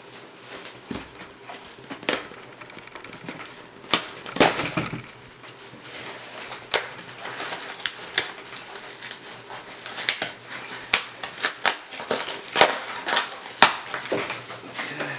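Plastic packaging being handled and picked open: irregular crinkling and crackling with sharp clicks and snaps scattered throughout, a few of them louder.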